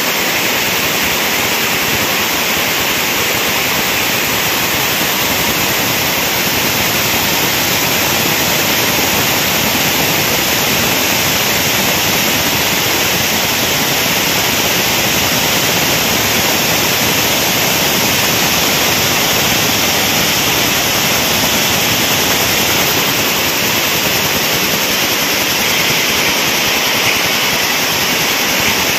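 Power looms running in a weaving mill, making a loud, steady, even noise with no let-up.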